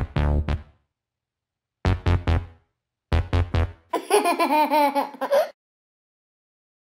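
Three short bursts of cartoon music, each a quick run of a few notes, then a cartoon character's giggling laugh about four seconds in.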